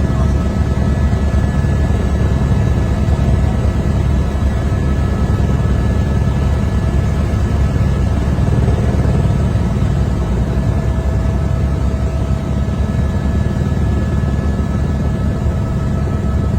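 Helicopter running steadily in flight: a constant low rotor and engine drone with a faint steady whine over it.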